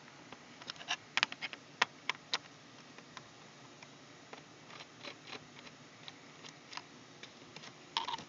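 Screwdriver backing small screws out of a laptop's plastic case and fingers handling them: scattered sharp clicks and light ticks, a cluster in the first couple of seconds and another near the end.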